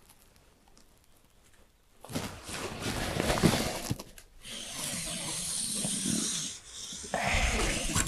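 Marker pen drawn along a steel ruler across a sheet of roofing underlay, a scratchy hiss lasting a few seconds and starting about two seconds in, with the ruler and sheet scuffing as they are handled.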